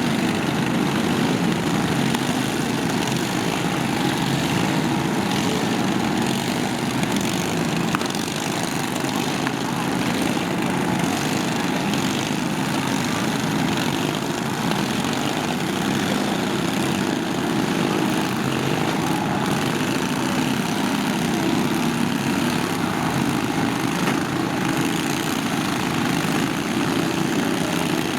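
Small lawn tractor engines running steadily, several at once, in a lawn mower demolition derby.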